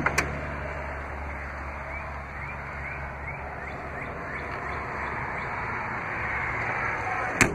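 Steady outdoor background noise, with faint short chirps repeating a couple of seconds in. Near the end a single sharp knock as the truck's RamBox bed-side storage lid is shut.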